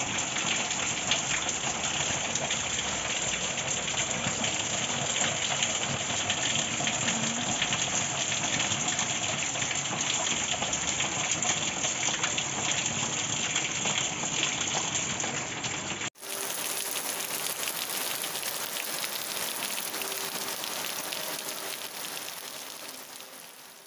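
Steady rain falling and splashing on plastic water barrels and a concrete yard. About two-thirds of the way through it cuts sharply to another stretch of steady rain, which fades out near the end.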